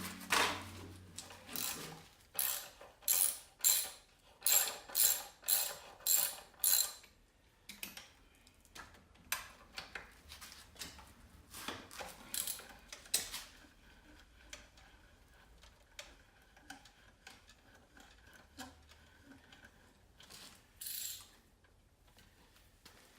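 Hand ratchet wrench clicking in quick repeated strokes, about ten strokes in the first seven seconds, then slower scattered clicks and taps of tools on metal.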